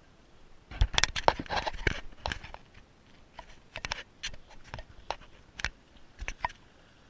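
Irregular sharp clicks and crunchy knocks, a dense run of them about a second in, then scattered single knocks until near the end.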